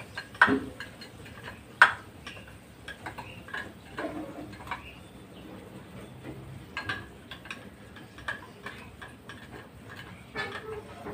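Metal spoon scraping and tapping against a small bowl, giving irregular light clinks and knocks, with two sharper clinks in the first two seconds.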